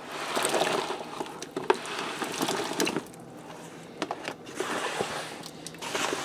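Diced red-skin potatoes sliding off a flexible plastic cutting mat and splashing into a pot of creamy liquid, in two bouts of plops and splashes with a short lull between.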